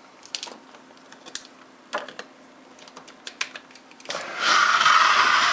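Faint steady hum from a car battery charger's transformer, its windings loose and not varnished, with scattered clicks and taps of handling. About four seconds in, a loud rushing, hissing noise starts and becomes the loudest sound.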